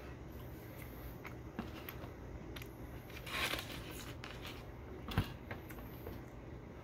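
Close-up eating sounds: chewing with small mouth clicks while fingers pick at crumbs in a paper bowl. A short rustling burst comes about three and a half seconds in, and a single sharp knock about five seconds in.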